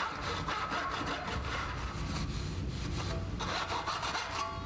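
Cloth rag rubbed back and forth over the steel blade of a tenon saw lying on a bench, a steady run of rapid scrubbing strokes.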